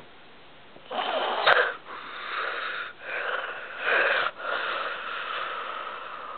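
Wheezy snoring: a series of rasping breaths, about a second each, starting about a second in. The last breath is drawn out and fades away.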